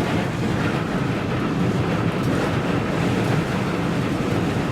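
Gale-force wind, steady at about 50 mph, buffeting a parked vehicle, heard from inside the cab as a steady, loud low rushing noise.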